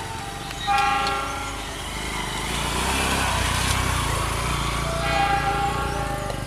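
Passenger train's coaches rolling past on the rails, a broad running noise with a low rumble building through the middle. A steady pitched tone sounds twice, about a second in and again near the end.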